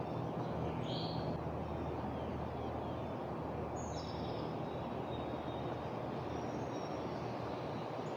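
Outdoor ambience: a steady low rumble of background noise, with a few short bird chirps about a second in, near four seconds and again near the end.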